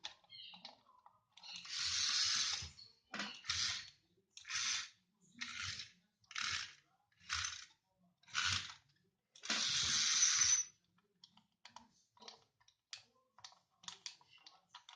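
Transforming robot van toy running its mechanism: a longer burst of gear noise, then shorter bursts about once a second, another longer burst about two-thirds of the way through, and light plastic clicks at the start and end.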